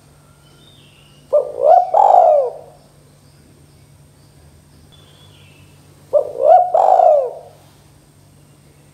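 Spotted dove cooing twice, about five seconds apart. Each call is a quick pair of short notes leading into a longer, falling coo, about a second in all.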